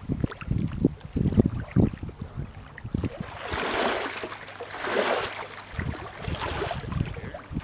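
Lake water slapping and washing against a rocky shore in irregular splashes, with low thuds in the first few seconds and bigger rushes of splashing later on.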